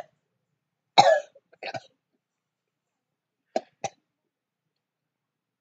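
A young woman coughs about a second in, reacting to a jelly bean's taste, then two short sharp puffs come from her mouth about three and a half seconds in.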